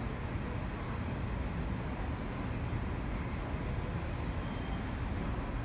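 Steady outdoor city traffic rumble heard from an elevated subway platform. Over it a faint, short, high chirp repeats about every 0.7 seconds.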